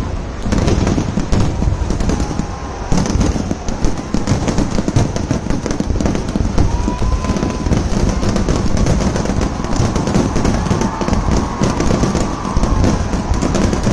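Kerala temple-festival fireworks (vedikettu): a dense, rapid barrage of firecracker and shell bangs running together into one continuous crackling roll, with a brief lull about two and a half seconds in.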